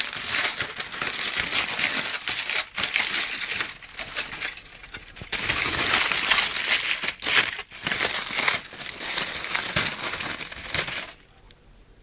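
Aluminium foil crinkling and crumpling as it is peeled by hand off a water-filled balloon, close to the microphone. It eases off briefly partway through and stops suddenly near the end.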